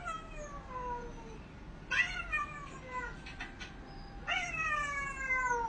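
A cat meowing three times in long, drawn-out meows, each one falling in pitch; the last is the loudest.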